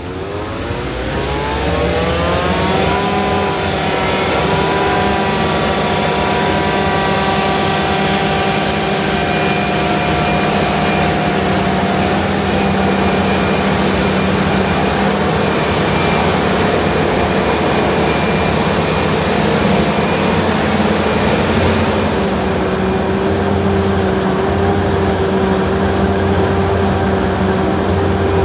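John Deere self-propelled forage harvester's diesel engine revving up over the first few seconds, then running steady at high speed under a constant rushing noise while chopping corn silage.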